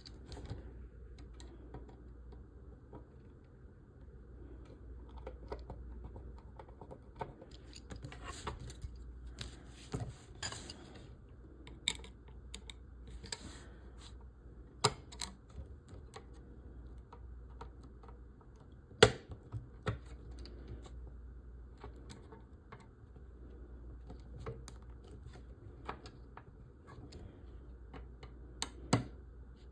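Scattered small clicks, light clatter and short rustles as screws are tightened into a model kit's frame with a small screwdriver and the parts are handled. A few sharper taps stand out, the loudest about 19 seconds in.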